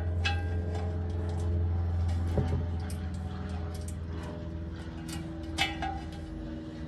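A few light metallic clicks and clinks as valve fittings are handled and threaded into a train-horn air tank, over a steady low hum.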